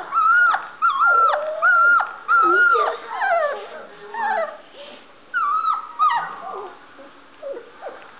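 Standard poodle puppy whining: short, high cries that fall in pitch, about two a second, growing sparser and quieter after about three seconds.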